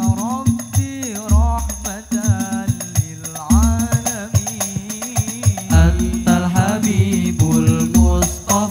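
Al-Banjari ensemble performing: several male voices sing a devotional melody that rises and falls in long phrases over a steady rhythm of terbang frame drums, with deep bass strokes beating under the singing.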